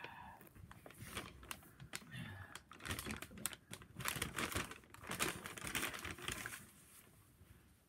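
A paper takeout bag rustling and crinkling as a hand opens it and reaches inside: an irregular run of crackles that dies away about six and a half seconds in.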